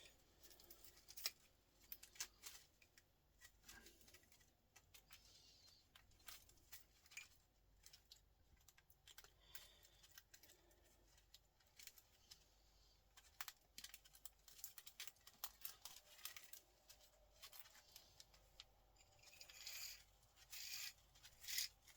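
Faint, scattered clicks and scrapes of small hand tools working components off circuit boards. A run of louder scratching comes near the end.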